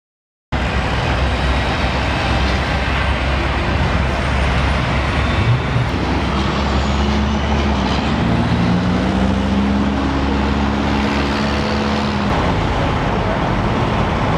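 Steady roadway traffic noise with a heavy vehicle's engine running, starting about half a second in. The low engine hum rises a little in pitch around the middle and fades out near the end.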